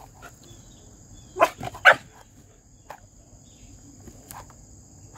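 Puppy barking twice, short and sharp about half a second apart, around a second and a half in, at a bristle-ended bug catcher held out at her, which she does not like.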